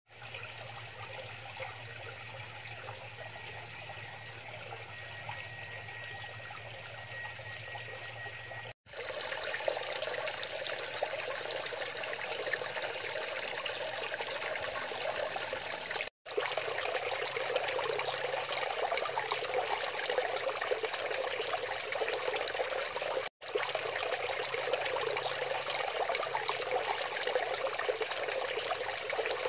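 Water trickling and splashing from a small rockery waterfall into a koi pond. The sound breaks off for an instant three times, and after the first break the splashing is a little louder.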